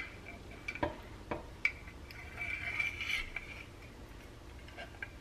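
Faint metal clicks and taps as a steel plane iron is handled and seated in a honing guide, with a short scraping slide of metal on metal about halfway through.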